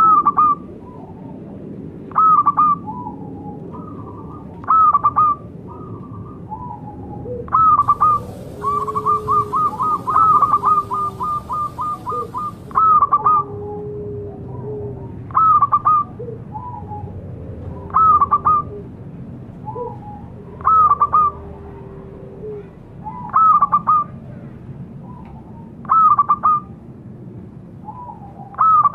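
Zebra dove (perkutut) singing its cooing call, a short phrase repeated about every two and a half seconds. Partway through the phrase breaks into a quick run of a dozen or so rapid notes. Fainter, lower drawn-out cooing notes sound between the phrases.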